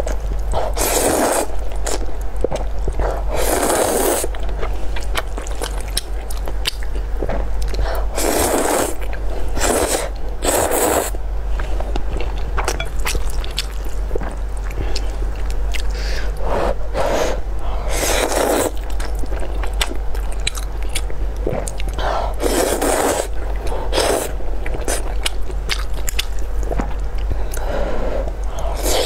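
Close-miked slurping of sauced noodles, several loud slurps a few seconds apart, with wet chewing and mouth clicks between them over a steady low hum.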